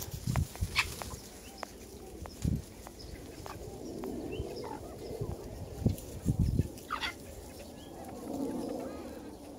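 A flock of chickens, hens and chicks, clucking and calling as they crowd in to eat thrown kitchen scraps, with scattered short clicks and a few low thumps.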